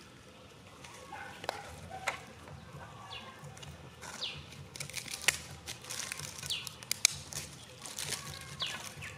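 Wild birds calling outdoors, several short falling chirps a second or two apart. A few sharp clicks stand out among them, the loudest about seven seconds in, over faint rustling of dry leaves and sticks being handled.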